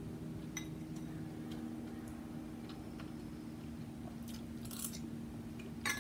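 Eating at close range: chewing and mouth sounds over a low steady hum, with small clicks of metal chopsticks against the bowls, and two sharp clinks near the end.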